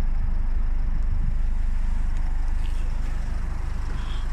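2012 Nissan X-Trail's four-cylinder diesel engine idling steadily, heard from inside the cabin.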